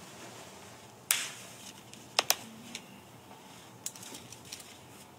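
A few light, sharp clicks and taps of hands handling something, over faint room tone: a single click about a second in, a quick pair just after two seconds, and softer ticks after that.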